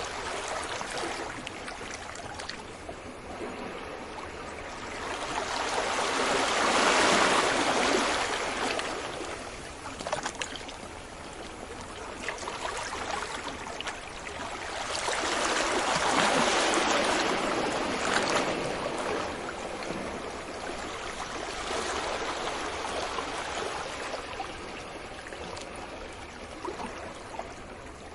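Sea waves breaking on a beach: a steady wash with slow surges that swell and fade, peaking about a quarter of the way in and again past the middle, with a weaker one later.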